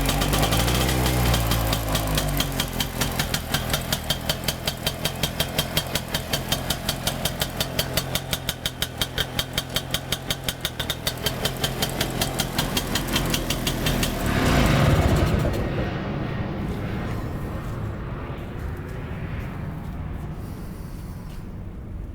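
Restored DKW RT 250's single-cylinder two-stroke engine running at idle with an even, pulsing beat. About two-thirds of the way through it swells briefly louder, then dies away to a fainter sound.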